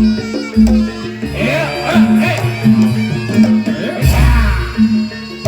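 Loud barongan accompaniment music with a steady beat, a repeated mid-pitched note and a gliding melody line above it.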